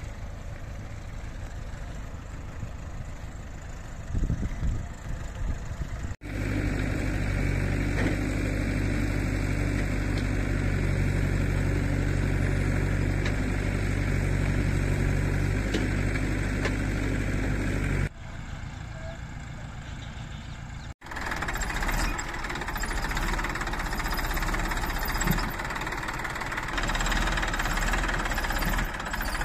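Diesel engines running through several abrupt cuts. First a JCB 3DX backhoe loader moves over a field. A steady engine hum is the loudest stretch in the middle. Near the end a Massey Ferguson 241 DI tractor runs close by.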